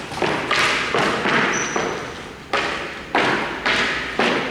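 Sharp knocks from hockey play, about six in a few seconds, each with a short echoing tail. A brief high squeak comes in about one and a half seconds in.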